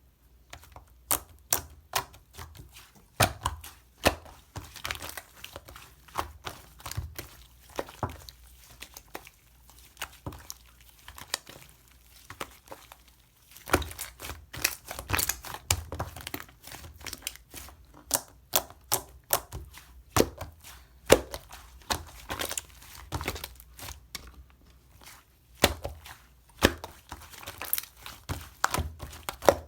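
Slime being handled, pressed and stretched by hand, making irregular crisp clicks, pops and crinkling sounds, denser in a few stretches.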